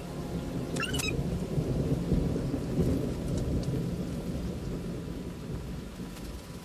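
Rolling thunder over steady rain, swelling about two seconds in and then fading away, with a short high chirp about a second in.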